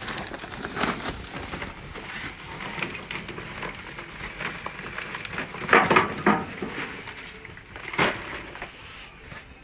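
Charcoal lumps tipped from a bag into a burning barbecue, clattering and rattling onto the grate and fire, with the loudest run of knocks a little past halfway and another near the end.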